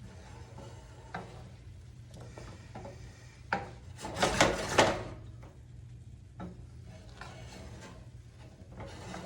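Wooden spoon scraping and turning fried rice in a pan in a few strokes, the loudest about four to five seconds in, over a steady low hum.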